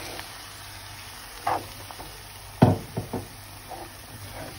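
A spatula knocking and scraping against a nonstick frying pan while stirring a chicken filling. There are a few sharp knocks, with the loudest group about two and a half to three seconds in, over a faint steady hum.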